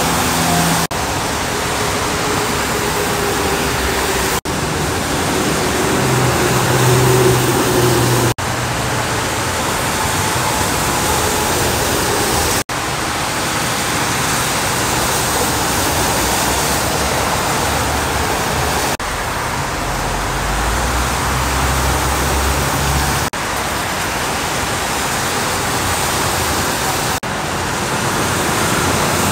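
Freeway traffic on a wet road: a steady hiss of tyres throwing spray, with the low drone of passing semi-truck engines in places. The sound breaks off and restarts sharply every few seconds.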